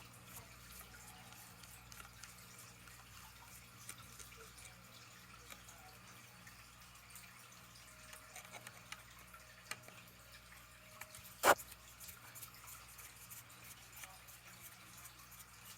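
Faint small clicks and taps from a handgun and its trigger lock being handled, with one sharper click about eleven seconds in, over a faint low hum.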